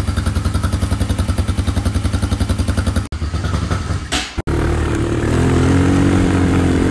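Small motorbike engine idling in rapid, even pulses, then, after a brief dropout about three seconds in, running steadily and rising a little as the bike is ridden.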